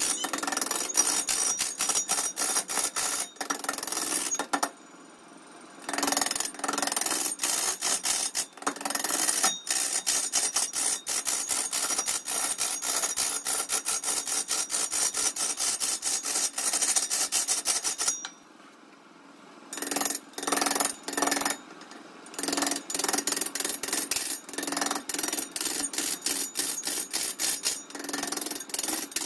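Woodworking tool work: a fast, even run of sharp strikes or scrapes with a metallic edge to them, pausing briefly twice.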